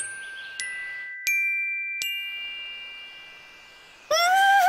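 Four bell-like chime notes struck about two-thirds of a second apart, each higher than the last, left ringing and fading. Near the end comes a louder, held, strained voice, as of someone heaving under a heavy load.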